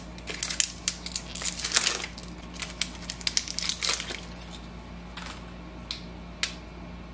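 Clear plastic packaging crinkling and crackling as an Epson ink cartridge is unwrapped by hand, dense for the first four seconds or so, then thinning to a few sharp clicks near the end.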